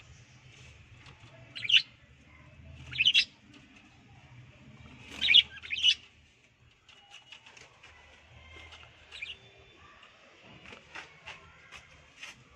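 Pet budgerigars chirping: a few loud, short, high chirps in the first six seconds, then softer scattered chirps.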